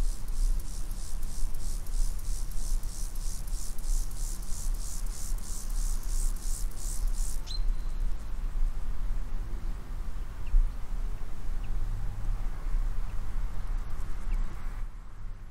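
Outdoor ambience with an insect chirping in a high, even rhythm of about three pulses a second, which stops abruptly about seven seconds in. Under it runs a steady low rumble, and a few faint short chirps come after.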